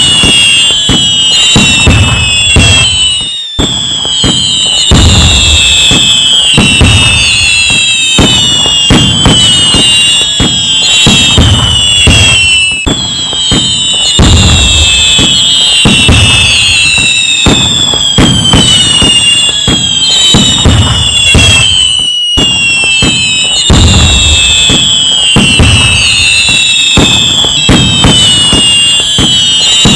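A fireworks display going off without a break: many overlapping whistles, most of them falling in pitch, over repeated low booms and crackle. The same stretch of about nine seconds repeats as a loop, with a brief drop-out at each join.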